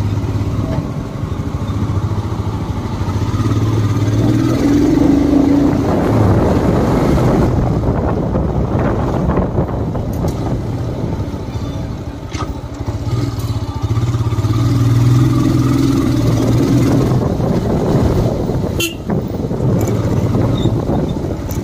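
Motorcycle engine running while the bike rides along a rough dirt lane. The engine note swells twice as it pulls harder, about four seconds in and again around fourteen seconds. There is a sharp knock near the end.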